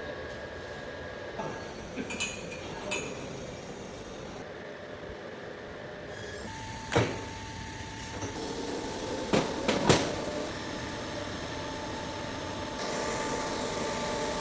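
Orbital pipe-welding equipment running: a steady machine hum and hiss, broken by a few sharp clicks, with a steady whine joining about six and a half seconds in and the hiss growing brighter near the end.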